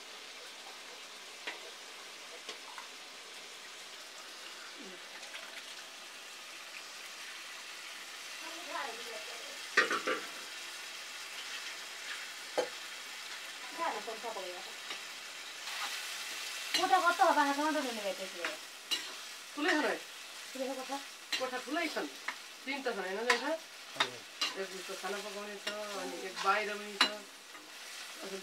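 Mutton sizzling as it fries in a wok, with a metal ladle stirring and scraping the pan from about eight seconds in; the scraping strokes squeak and come thicker toward the end.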